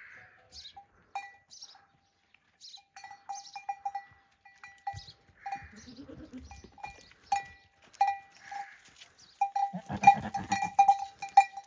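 Small metal bells worn by goats clanking irregularly as the animals move, each strike ringing on the same note. The strikes get busier and louder over the last couple of seconds.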